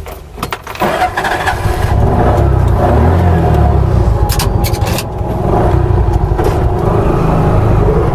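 TVS King Kargo three-wheeler's engine running under way, heard from inside the cab. It gets louder about a second in, with a few sharp clicks and knocks around the middle.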